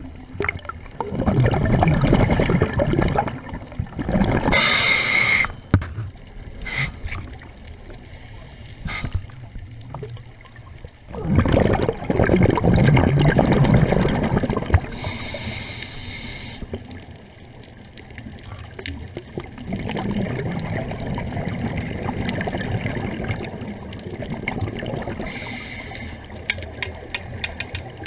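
Scuba diver breathing through a regulator underwater: three long bubbling exhalations, each with a short high hiss of an inhale through the regulator.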